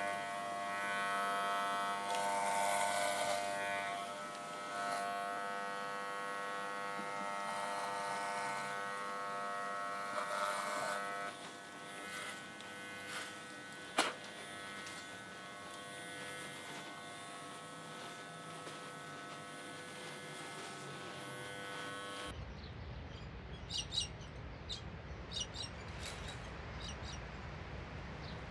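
Electric hair clippers buzzing steadily, a single-pitched electric hum with a sharp click about halfway through. About three quarters of the way in, the buzz cuts off and gives way to a low outdoor rumble with a few light clicks.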